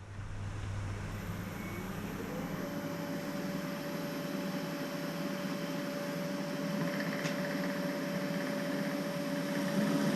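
Electric drill motor starting up: its whine rises in pitch over the first couple of seconds, then runs steadily at speed.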